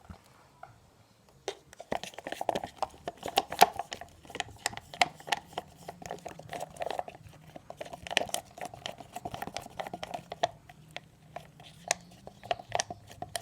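Glue-and-water slime being stirred with a plastic spoon in a plastic cup as it thickens: rapid sticky clicks and squelches of the spoon working the mix, starting about a second and a half in.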